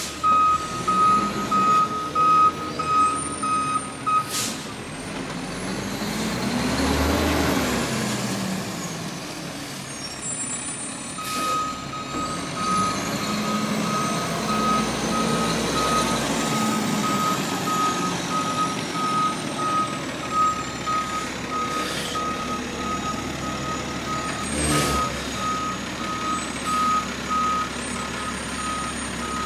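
Garbage truck's backup alarm beeping steadily over its diesel engine as the truck reverses; the beeping stops about four seconds in and starts again about eleven seconds in. Around seven seconds in the engine revs up and falls back, and a few short sharp noises, air-brake releases, stand out above it.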